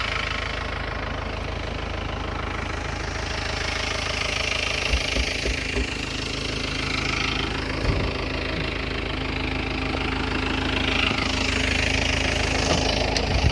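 Vehicle engine idling steadily, with a few low knocks now and then.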